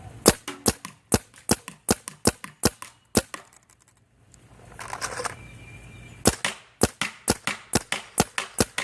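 Planet Eclipse Geo 3 electronic paintball marker firing rapid shots, about five a second. The string stops about three seconds in, with a short rustle during the pause, then picks up again at the same pace.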